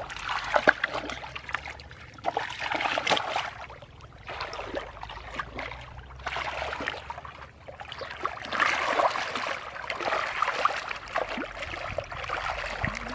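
Splashing and sloshing of shallow muddy water as people wade and grope through it by hand, coming in uneven spells with small wet slaps and trickles.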